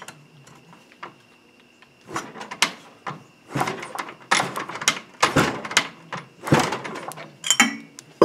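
A 150cc dirt-bike engine is kicked over repeatedly on its kickstarter with the spark plug out and grounded on the cylinder head, a check for spark. It gives a run of sharp mechanical knocks about once a second, starting about two seconds in.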